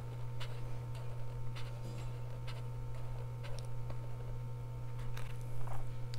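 A marker tip rubbing on paper as a small circle is coloured in, giving faint scratchy strokes about twice a second over a steady low hum.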